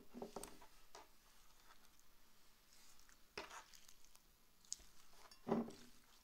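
Faint sounds of slime being squished and pulled apart by hand, with a few small clicks in the first second and a louder soft squelch about five and a half seconds in.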